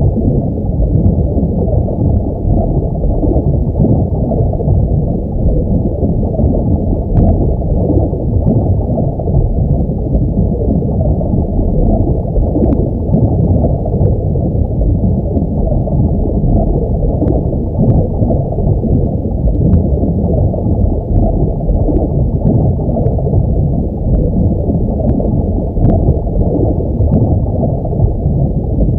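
Underwater ambience sound effect: a steady, muffled low rumble of water with faint scattered clicks.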